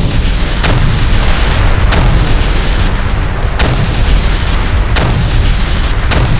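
Battle sound effects of naval gunfire and explosions: a continuous heavy rumble with several sharp blasts, one every second or so.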